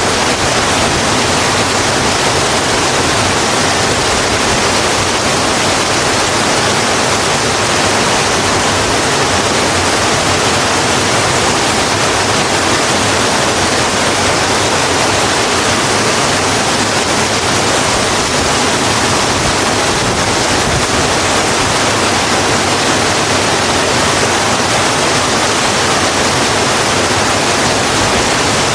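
Steady rain falling, an even wash of rain noise with no single drops, thunder or other events standing out.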